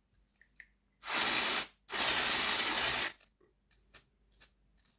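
Aerosol contact cleaner sprayed in two bursts, a short one about a second in and a longer one right after, then a few light clicks.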